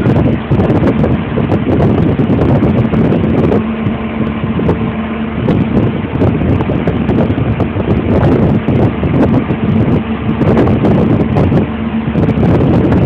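Heavy engine running steadily, a loud rough rumble with a constant hum, heard from inside a vehicle cab.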